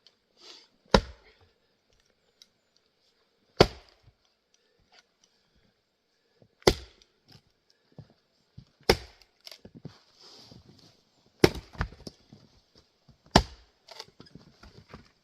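Axe splitting grand fir rounds: six sharp chopping strikes about two to three seconds apart, with a quick double strike near the end and lighter wooden knocks between.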